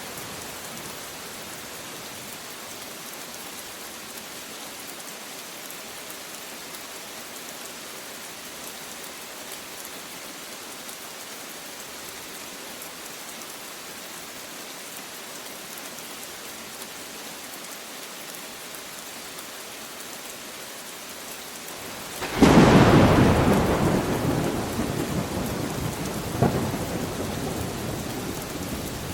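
Steady rain falling, then about 22 seconds in a sudden close thunderclap that rumbles and fades away over several seconds, with a second, smaller crack a few seconds later.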